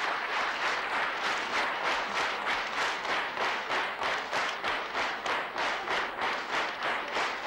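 A large crowd applauding, the clapping falling into a steady rhythm in unison at about two to three claps a second.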